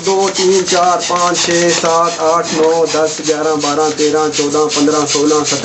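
Air pump worked rapidly to inflate a balloon: a fast, even rhythm of rasping strokes, several a second, each with a squeaky tone.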